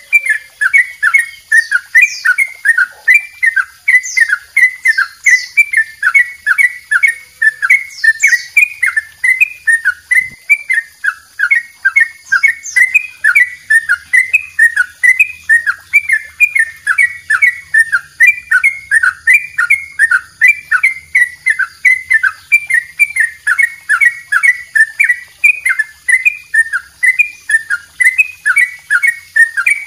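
Caged yellow-vented bulbul (trucukan) singing a long, unbroken ropel: quick, bubbling notes repeated about three a second, with no pause.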